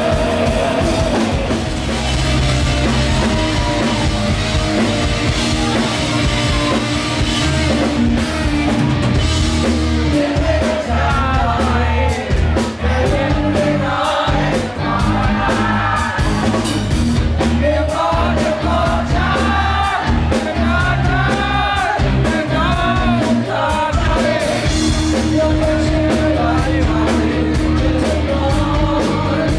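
Live rock band playing: electric guitars and a drum kit, with a man singing over them.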